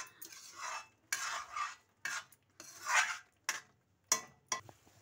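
Spoon scraping and stirring thick masala paste in a steel kadai, in a run of strokes each about a second long, with a few sharp clinks of the spoon against the pan near the end. The masala is being fried on low heat until the oil separates.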